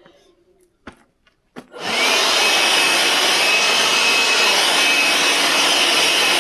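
A few light knocks, then a leaf blower starts up about two seconds in: its whine rises quickly to a steady high tone over a loud, even rush of air.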